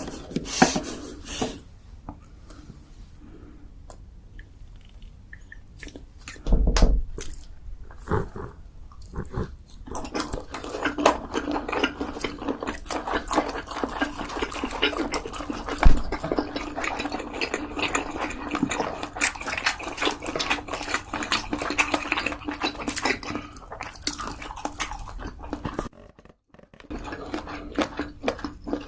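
Close-miked eating sounds: wet chewing and crackly mouth noises, densest through the middle, with a couple of louder knocks.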